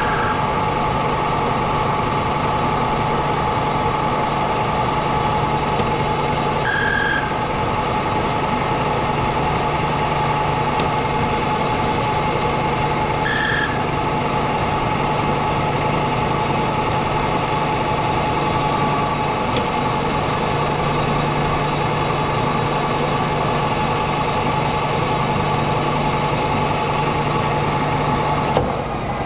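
Old turret lathe running under power, turning a metal spindle, with a steady machine hum and whine; two brief high squeals come about 7 and 13 seconds in.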